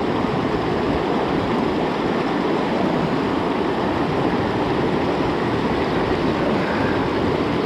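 Steady rush of a small mountain creek running over rocks, unbroken and even in level.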